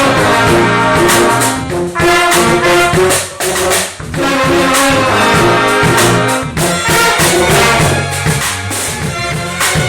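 Live jazz band playing: horns carry the melody over a moving bass line and a steady drum beat.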